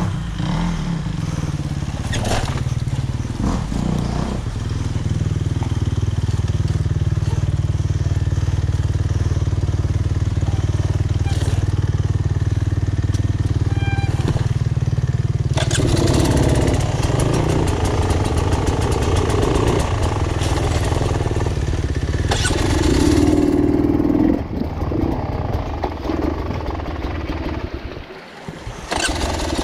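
Off-road motorcycle engine that cuts in suddenly and then runs steadily. From about halfway it gets louder, with rough rushing noise as the bike rides. It dips briefly and drops out shortly before the end, then picks up again.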